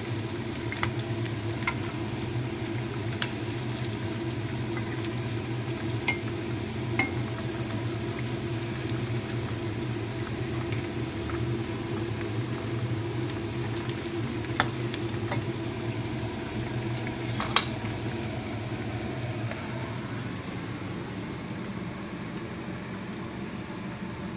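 Chicken pieces deep-frying in a pan of hot oil: a steady sizzle and bubbling with a low hum underneath, and a few sharp clicks of the metal spatula against the pan. The frying sound drops a little near the end.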